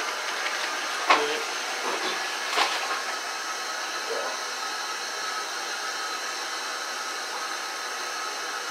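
Steady whirring hiss in the room, with two short clicks about a second and two and a half seconds in.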